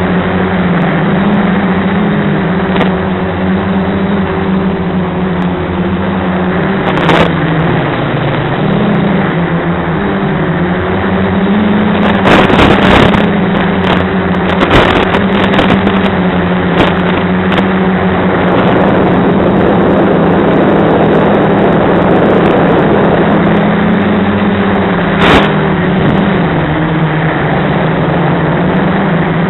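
Quadcopter's electric motors and propellers humming steadily, the pitch wavering up and down with throttle, under heavy hiss. Scattered sharp clicks and crackles, thickest about twelve to seventeen seconds in.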